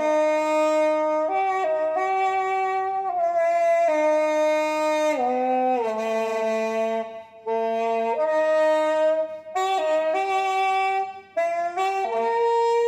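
Bamboo saxophone with a gourd bell playing a slow melody of held notes, with a few short breaks between phrases. Its tone sounds much like a saxophone.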